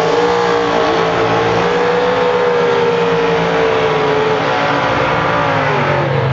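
Two drag-racing super sedans, a Plymouth 'Cuda and a Ford Escort, doing burnouts: engines held at high revs with their rear tyres spinning in smoke. The engine note stays high and steady, then eases down near the end.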